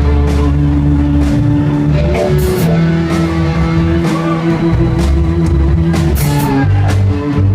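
Rock band playing live: electric guitar and bass holding sustained notes over a drum kit with steady cymbal hits.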